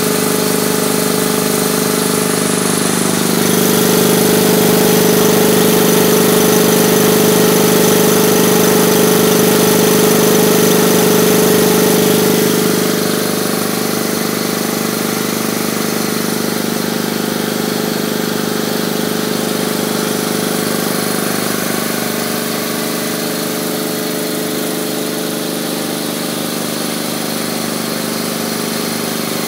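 Stationary electric air compressor running steadily, its pump giving a continuous mechanical hum. It runs somewhat louder for the first dozen seconds, then drops a little and carries on evenly.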